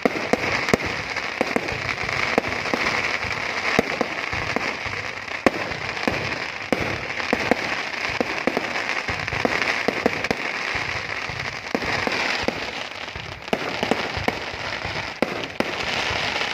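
Aerial fireworks display going off continuously: a steady crackle with many sharp pops and bangs in quick, irregular succession.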